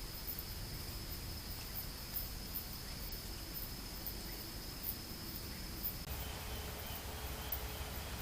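Outdoor night-time ambience of insects trilling, heard as a steady high continuous tone. About six seconds in it cuts off abruptly and a lower, fainter trill takes over.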